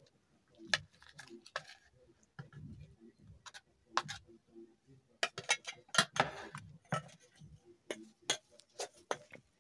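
Metal spoon clinking and scraping against ceramic plates and a stainless steel pot while food is served: irregular sharp clicks, with a quicker run of clinks and a short scrape about six seconds in.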